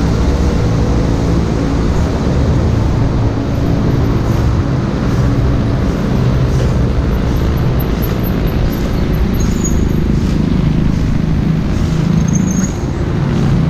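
Steady low rumble of motor vehicle engines and road traffic.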